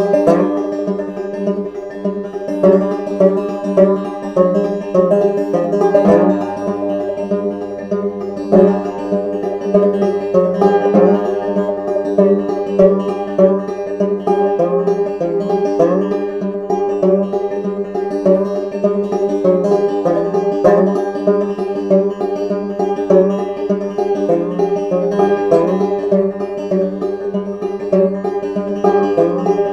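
Background music with fast plucked-string picking over sustained chords.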